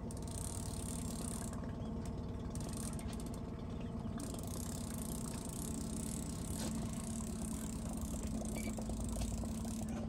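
Small boat's outboard motor running steadily at trolling speed: a constant low hum that holds one pitch.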